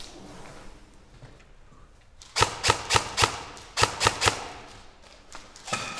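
Airsoft rifle firing single shots, seven sharp snaps in two quick strings of four and three, about three a second, starting a little over two seconds in.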